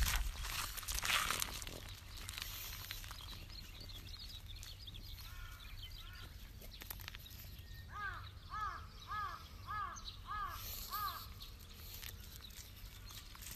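A crow cawing in a run of about six caws roughly half a second apart, with a fainter set of calls a few seconds before. In the first couple of seconds there are footsteps crunching on gravel.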